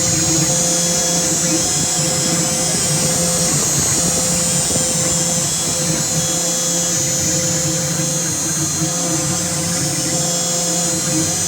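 SainSmart PROVer XL 4030 CNC router running a carve: a steady high whine and hiss from the cutting spindle, with lower humming tones from the machine that break off and come back every second or so.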